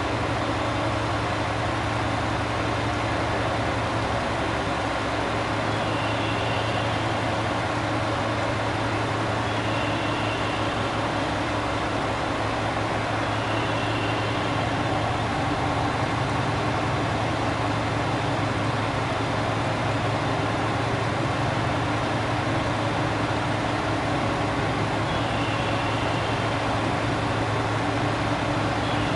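A diesel railcar's engine idling, a steady low hum, under the even hiss of steady rain. A short high-pitched tone repeats every few seconds.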